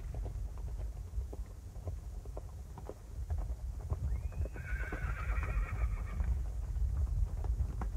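Horse hooves clip-clopping in a steady run of knocks, with a horse whinnying once for about two seconds near the middle.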